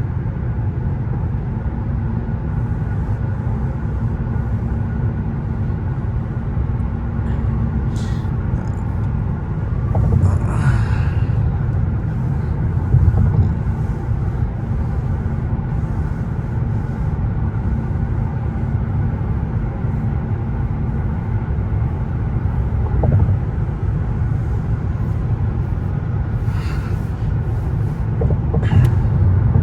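Steady low road rumble inside a Mercedes-Benz S580's cabin while driving, with a constant faint hum. Brief swells of louder noise come about ten seconds in and again near the end.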